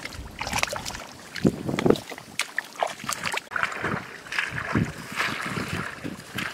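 Irregular splashing and rustling: a person moving hands and feet through shallow water and rice stems in a flooded paddy, with short knocks and a stretch of hissy rustling a little past the middle.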